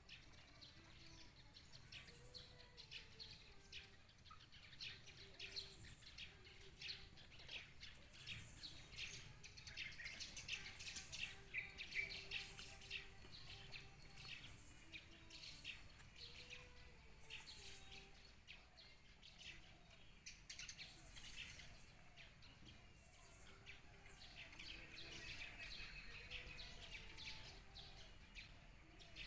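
Faint birds chirping and twittering, many short calls overlapping throughout and busiest around the middle.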